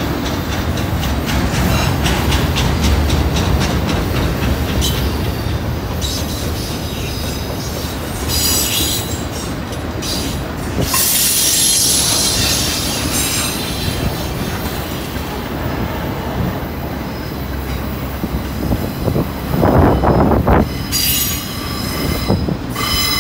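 A long autorack freight train rolling past at a steady speed, its wheels rumbling and clicking over the rail joints. A high metal-on-metal wheel squeal comes and goes several times as the cars pass.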